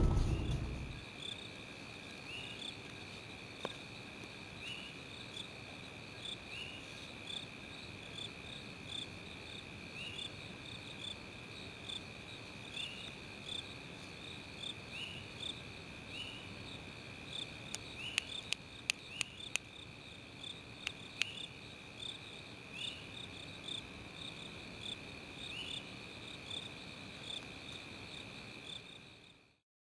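Insects calling: a continuous high, shrill trill with a second chirping call repeating about once a second above it. A short run of sharp clicks comes a little past halfway.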